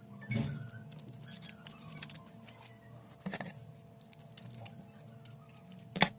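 Scattered small clicks and taps with three sharper knocks, one about a third of a second in, one about three seconds in and the loudest near the end, over a faint steady hum.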